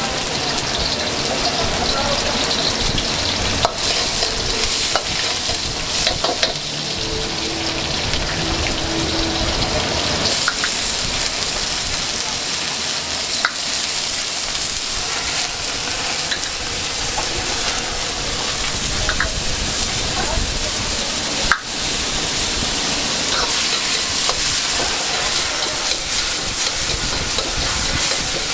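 Fried rice sizzling and hissing steadily in a hot wok as it is stir-fried, with occasional sharp knocks.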